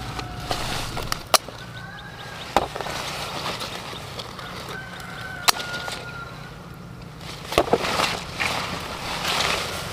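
Pruning shears snipping bell peppers off the plant: three sharp clicks about a second and a half in, two and a half seconds in, and five and a half seconds in, with leaves and stems rustling, busier near the end. Poultry calls faintly in the background.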